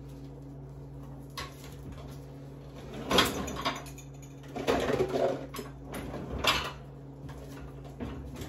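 A lower kitchen cabinet opened and rummaged in: knocks and clattering of kitchenware in three short bursts as a metal box grater is taken out, over a steady low hum.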